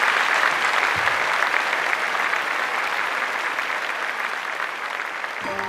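Studio audience applauding, the clapping slowly dying down; soft sustained music chords come in near the end.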